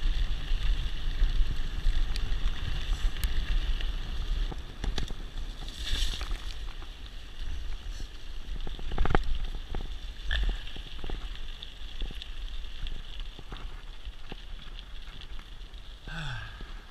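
Wind buffeting a GoPro's microphone as a mountain bike rolls down a dirt and gravel trail, with the low rumble of the tyres and scattered sharp knocks and rattles of the bike over bumps. It grows quieter over the second half.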